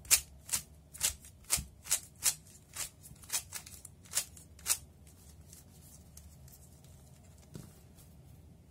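3x3 speed cube's plastic layers being turned by hand, a quick run of about a dozen clicking turns over the first five seconds, then stopping, with one faint click near the end. The turns carry out the H-perm algorithm of the CFOP last-layer step.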